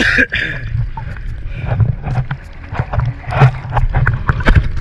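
Sea water sloshing and splashing around a diver at the surface, with many short splashy knocks over a low, uneven rumble.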